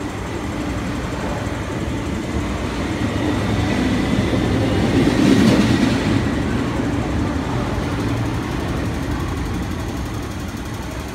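Electric commuter train running along the platform, a steady rumble that grows louder to a peak about five seconds in and then eases off.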